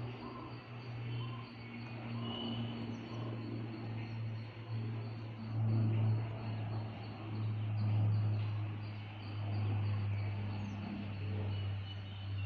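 Military propeller aircraft flying overhead: a steady low engine and propeller drone that grows louder through the middle and eases off near the end.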